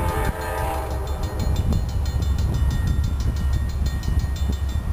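A distant freight locomotive horn sounds briefly as a chord at the start and fades. A steady low rumble runs on underneath from the approaching freight train.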